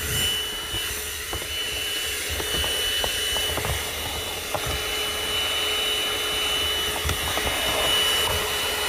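Agaro CV1077 handheld car vacuum cleaner running steadily, its motor giving a steady whine over the rush of air, with a few small ticks as bits of debris are sucked up.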